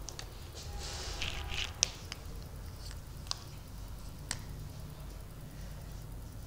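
Marker pen scratching and squeaking faintly across a whiteboard, with three short sharp ticks about two, three and four seconds in, the first the loudest.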